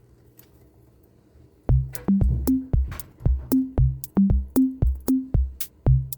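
Background music with an electronic drum-machine beat and a bass line, about two beats a second, coming in suddenly a little under two seconds in after a faint, quiet stretch.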